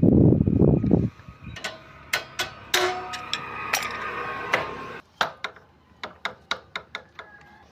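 Metal-on-metal workshop sounds from a two-wheeler side stand repair. A dense, loud rattle lasts about a second, then come sharp metallic clinks that ring briefly, then a run of about three lighter clicks a second that fade out near the end.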